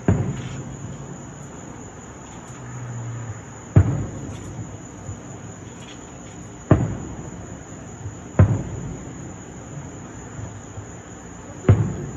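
Fireworks shells bursting with five sharp booms a few seconds apart, each trailing off in an echo, over crickets chirping steadily.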